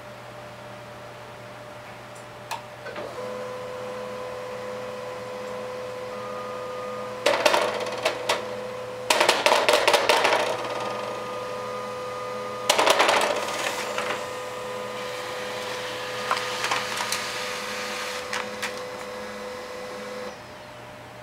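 HP LaserJet printer running a print job: a click, then a steady whine that stops near the end, broken by several bursts of rapid clattering and knocking as the printer's mechanism works and a cat swats at its output tray.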